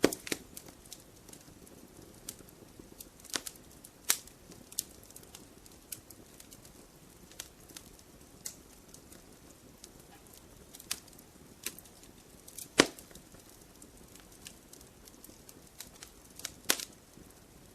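Wood fire crackling: irregular sharp pops and snaps over a soft rushing of flames, with loud pops near the start, about four seconds in, about thirteen seconds in and near the end.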